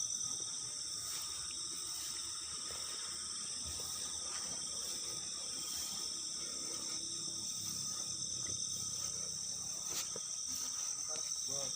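Night chorus of crickets and other field insects: a steady, high-pitched trilling in several overlapping pitches that never lets up.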